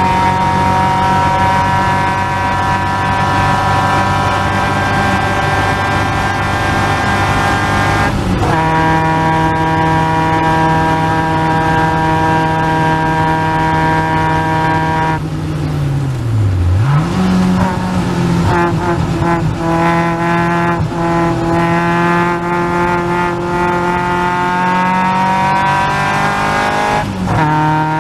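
Caterham Seven's 2.3-litre Ford Duratec four-cylinder at full throttle, heard on board, its note climbing slowly in pitch. It breaks briefly about a third of the way in. Just past halfway it drops away and dips in pitch, then picks up and climbs again, with another break near the end.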